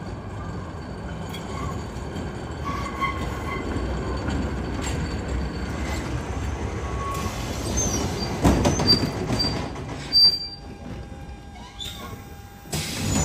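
Tram running on its track, with the wheels giving several short high squeals. A couple of sharp knocks come about eight and a half to nine seconds in, then a loud short squeal. The sound falls away for a couple of seconds and rises sharply again near the end.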